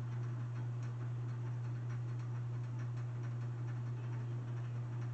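42-inch Hampton Bay Littleton ceiling fan running on high: a steady low hum with faint, repeated ticking, noisy for its size.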